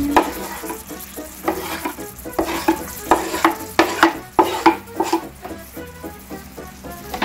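Chopped sardines scraped off a wooden cutting board with a utensil into a pan of simmering tomato sauce: a run of quick scrapes and knocks, about two a second, from about a second and a half in until about five seconds, with the sauce sizzling underneath.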